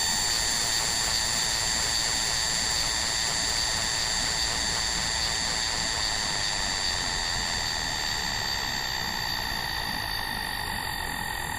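Electronic music: a steady synthesizer drone of several held tones over a grainy noise bed, with a slow downward sweep through the high end in the second half.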